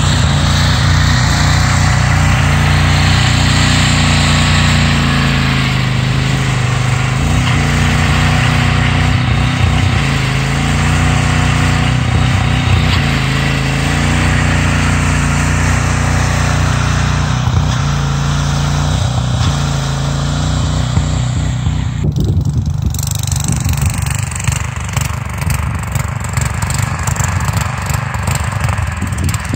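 Six-wheeled Craftsman garden tractor's engine running under load while climbing a snowy hill, its pitch drifting up and down with the throttle. About two-thirds of the way in the sound changes abruptly and becomes duller and choppier.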